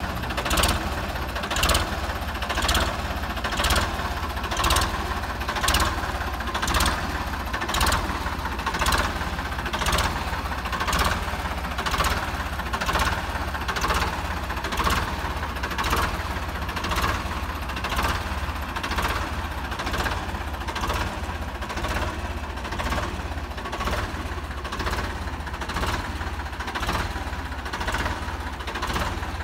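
Ford 3600 tractor engine idling steadily, with a regular beat about once a second.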